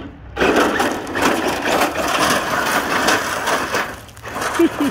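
Gravel crunching and spraying under the tyres of a Losi Ten SCTE RC short-course truck as it launches hard on a loose gravel driveway. It starts suddenly about half a second in as a dense, loud crackle and dies down shortly before the end.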